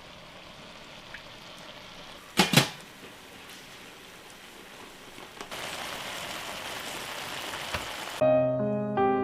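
Food sizzling in a frying pan, with two sharp knocks in quick succession about two and a half seconds in; the sizzle grows louder past the halfway point. Piano music starts near the end.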